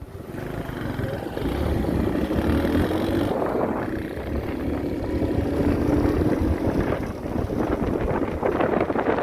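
A vehicle travelling along a road: a steady rumble of engine and road noise.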